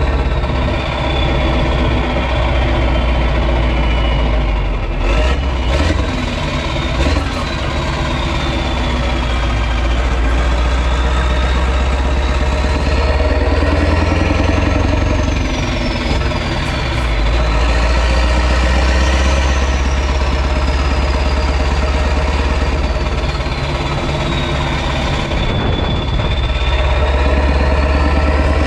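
Renault Magnum truck's 16.4-litre Mack E9 V8 diesel running loud through an open exhaust, with a deep rumble and a turbo whistle that rises and falls with the throttle several times. A few short clicks sound about five to seven seconds in.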